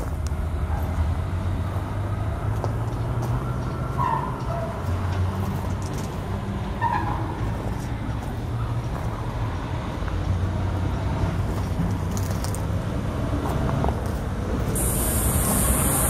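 Steady low rumble of road traffic, with a few faint chirps; a steady high hiss comes in near the end.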